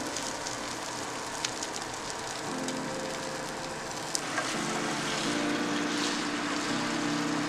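Egg cubes sizzling as they fry in a pan, with a few sharp crackles, over background music.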